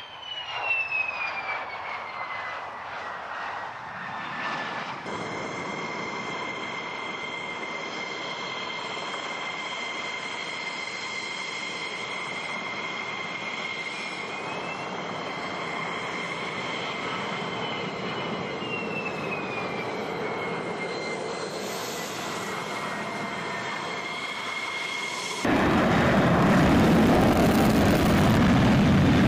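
F-16 jet engines at takeoff: a high turbine whine that falls in pitch as a jet goes by, then a steady whine over a roar that rises and then falls in pitch partway through. About 25 seconds in it cuts suddenly to a much louder, close-up jet engine roar from an F-16 taxiing past.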